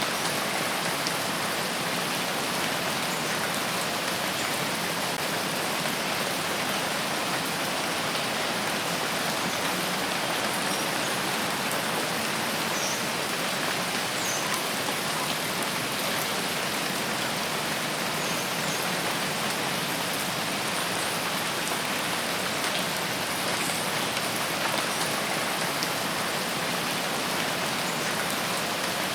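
Steady rain falling in a forest, an even hiss with no change in strength. A few faint, short high chirps sound partway through.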